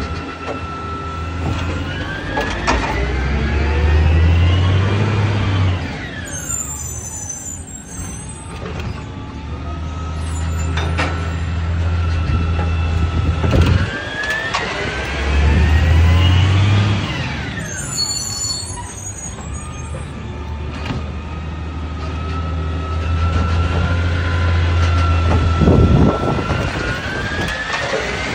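Automated side-loader garbage truck working its hydraulic lifting arm: the engine's deep hum steps up as it revs while a hydraulic whine rises in pitch and then sweeps back down, repeating in cycles about every twelve seconds, with a few sharp knocks in between.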